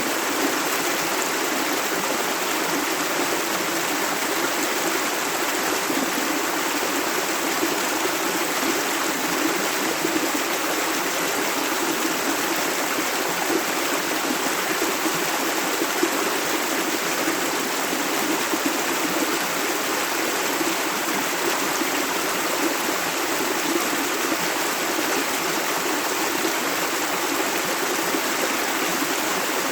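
Clear river water running steadily over rocks, a continuous rushing and babbling.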